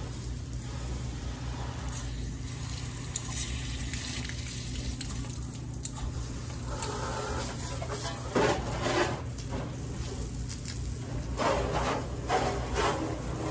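Water spraying onto a truck during a wash, a steady hiss with two louder surges, one about eight seconds in and one near the end.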